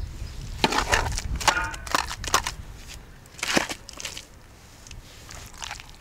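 Steel shovel scraping through wet mud mix and dumping it into a galvanized metal bucket: a few scraping, slapping strokes in the first four seconds, quieter after.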